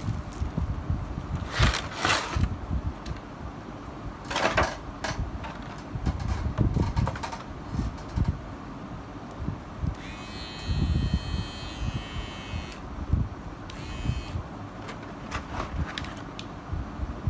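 Handling noises of unboxing a hair trimmer: scattered clicks, rustles and light knocks of the box and plastic parts. A steady high tone runs for about three seconds past the middle, and again briefly soon after.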